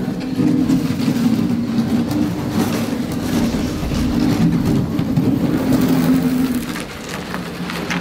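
A motor running steadily with a noisy hiss, dying away near the end.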